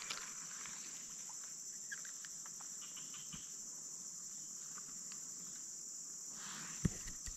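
Steady high-pitched buzzing of an insect chorus, with faint scattered clicks and rustles and a short soft thump near the end.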